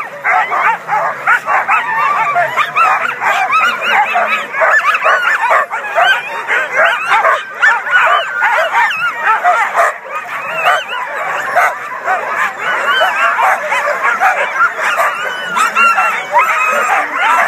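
A large pack of harnessed sled dogs (Alaskan huskies) barking, yipping and whining all at once in a continuous clamour, many voices overlapping with no pause: the excited din of dog teams eager to be let go on the trail.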